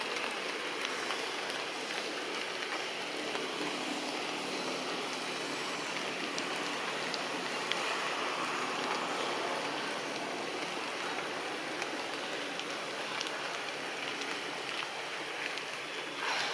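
Steady rushing outdoor background noise with a few faint ticks, and a brief louder sound right at the end.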